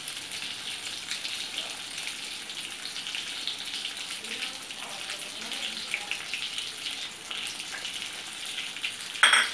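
Hot oil sizzling and crackling steadily in the frying pan after a batch of fish. A short, loud knock comes near the end.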